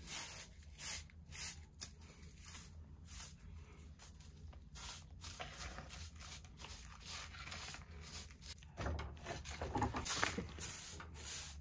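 Short straw hand broom sweeping an earthen floor in repeated brushing strokes, about one or two a second, with dirt swept toward a plastic dustpan. The strokes grow denser and louder about nine seconds in.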